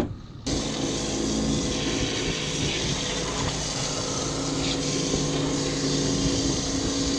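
Boat washdown hose spraying water over a salmon in the fish box: a steady hiss with a steady pump hum under it, switching on about half a second in.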